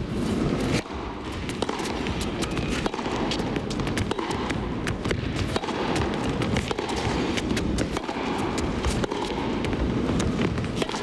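Live court sound of an indoor tennis rally: sharp ball strikes and clicks scattered irregularly over a steady low rumble of crowd and hall noise.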